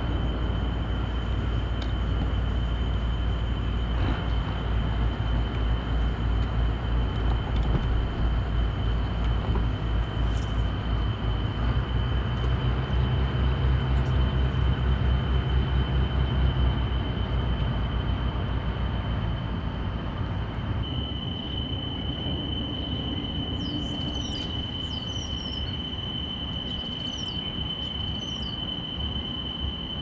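Boat motor running steadily with a low hum and a constant high-pitched whine. The low hum drops away about two-thirds of the way through, and birds chirp near the end.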